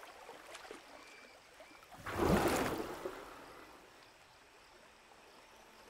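Bull forest elephant blowing a jet of air through his trunk into the shallow riverbed water: a single loud rush about two seconds in that fades over about a second. He is breaking up the riverbed sediment to get at the buried salt.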